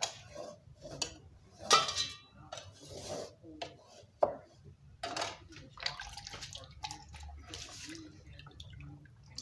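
A steel knife clanking against a metal cooking pot in a few sharp knocks, the loudest about two seconds in. Then water sloshing as hands wash raw tripe in a plastic basin.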